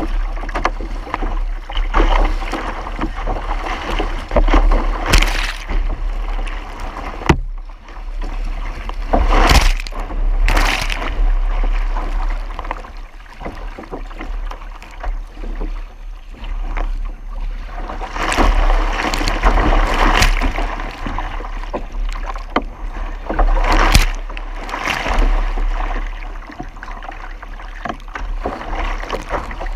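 Water rushing and splashing along the hull of a sea kayak moving under sail, surging and easing every second or two over a steady low rumble.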